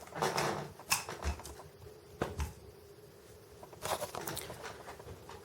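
Light clicks and brief rustles of small diecast model counterweight pieces being handled, in several short bursts with quieter gaps between.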